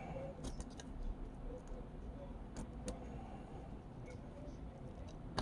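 Faint, sparse ticks and clicks of a soldering iron tip working along the solder joints of a hard-drive circuit board's SATA connector pins, with one sharper click near the end, over a low steady hum.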